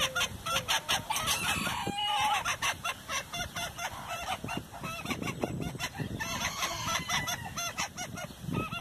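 Bantam chickens clucking and calling while pecking at shredded lettuce, with many quick beak taps on the ground among the calls.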